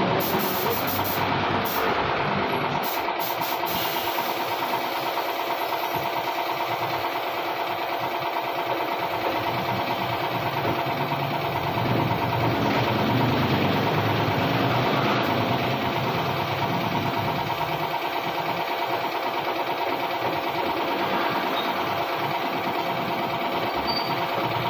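Air compressor running steadily, with the air hiss of a spray gun laying clear coat on a car panel.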